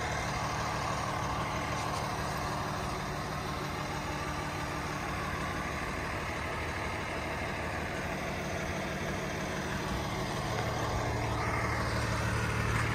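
A truck engine idling steadily, getting a little louder near the end.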